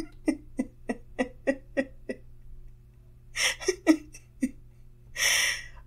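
A woman laughing quietly: a run of short breathy laughs, about three a second, then a few more after a pause, and a breath near the end.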